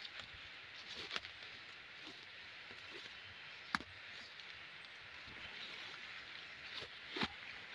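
Footsteps through forest undergrowth, with leaves brushing and a few sharp snaps of twigs, the loudest about halfway through, over a steady high background hiss.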